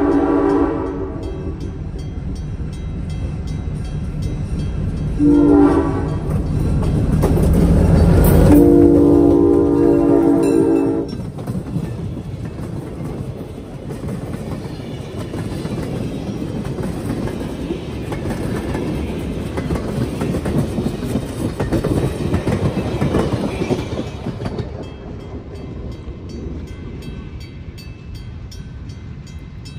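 A locomotive blows its horn: a blast that ends about a second in, a short one around five seconds, and a longer one just after the engine rumble peaks as the locomotive passes. A string of freight cars then rolls by, their wheels running on the rails, and the sound fades as the train moves away near the end.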